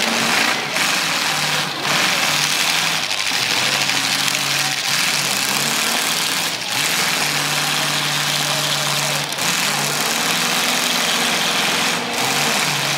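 Several demolition derby cars' engines running and revving as the cars push against one another in a tangle, their pitch rising and falling again and again over a dense engine-and-exhaust noise.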